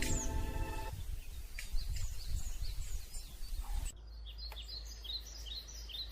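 Small birds chirping outdoors: short, quick chirps repeated in loose series, busiest in the second half. Background music fades out in the first second.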